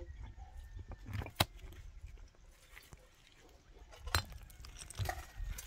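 Quiet outdoor ambience: a low rumble with a few sharp clicks or knocks, two standing out about a second and a half and four seconds in.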